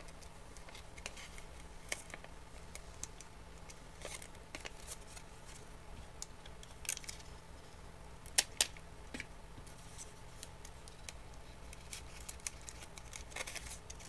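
Paper strip rustling and crinkling as it is handled and taped, with tape pulled from a desk tape dispenser and torn off on its cutter. A scatter of small clicks and rustles, the sharpest a pair of snaps about eight and a half seconds in.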